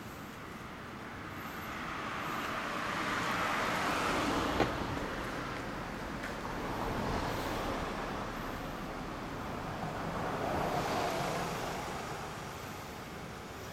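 Road traffic going by: two passing vehicles, each a hiss of noise that swells up and fades away, with a sharp click at the loudest moment of the first.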